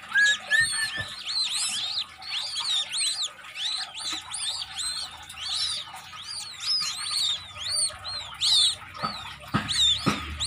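A huddle of newly hatched white-breasted waterhen chicks peeping constantly, many short high arched chirps overlapping one another. A few evenly spaced thumps begin about nine seconds in.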